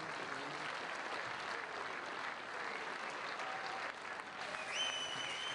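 Audience applauding in an auditorium, with a short high whistle near the end.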